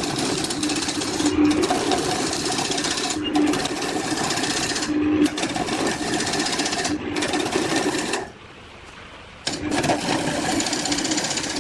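Power tool working wood with a steady motor hum and harsh cutting noise that breaks off briefly every second or two, then drops away for about a second near the end before resuming.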